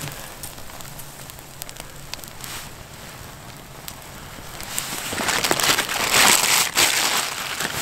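Newly lit campfire of dry twigs crackling and snapping, with sharp pops throughout; the crackling grows denser and louder about five seconds in as the flames catch.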